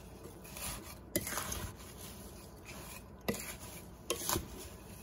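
Wooden spoon stirring sugared, spiced apple slices in a glass bowl: soft scraping and rustling in a few separate strokes.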